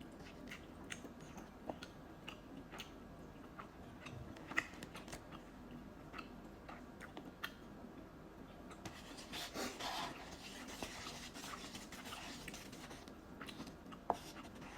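Close-up eating sounds of spicy instant ramen noodles: scattered wet clicks of chewing, with a louder stretch about ten seconds in.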